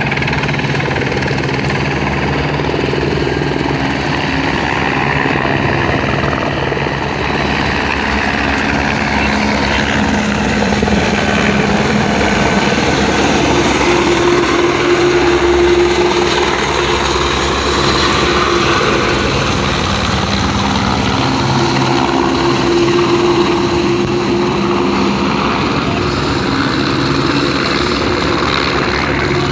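Helicopter engine and rotor noise heard from inside the cabin: a loud, steady drone with a few pitched tones that shift slightly in pitch and strength.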